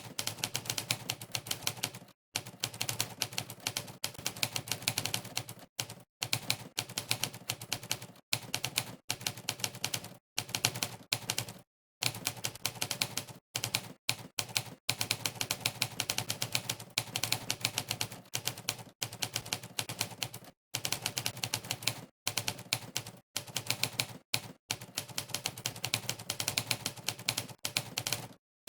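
Typewriter keystroke sound effect played on every keypress of a typing test: rapid, fast typing with many clacks a second, broken by short pauses of dead silence between bursts.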